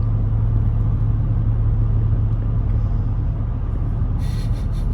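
Steady low drone of a truck's cabin on the move: engine and road noise. A few brief rustling noises come in near the end.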